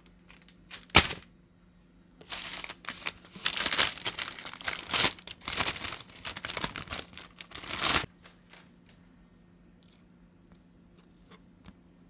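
White wrapping paper crinkling and rustling as it is pulled open from around duck breasts, after a single sharp knock about a second in. The crinkling stops suddenly near two-thirds of the way through, leaving a few faint ticks as the meat is handled on the board.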